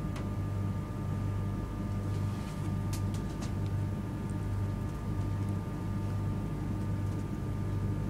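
Steady low hum inside a first-class saloon of an East Coast Mark 4 carriage as the train moves off slowly, with a few faint clicks about three seconds in.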